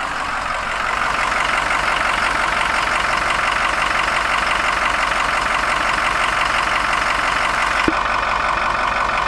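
2007 Ford F-550's Power Stroke turbo diesel V8 idling steadily, a little louder after about a second, with one short click about eight seconds in.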